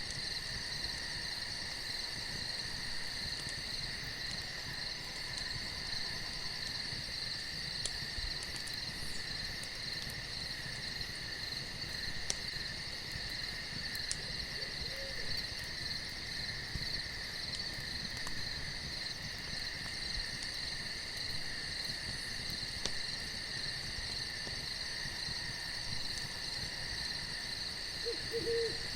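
Crickets chirring steadily in a constant multi-band night chorus, with a few faint clicks. A faint owl call comes about halfway through, and an owl starts hooting just before the end.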